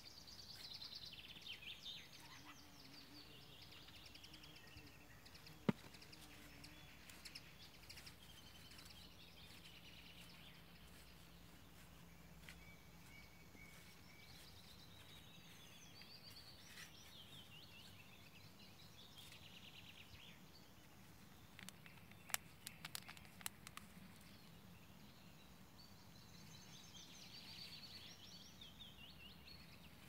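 Faint songbirds singing short trilling phrases on and off. There is a single sharp click about six seconds in and a quick run of clicks a little past twenty-two seconds.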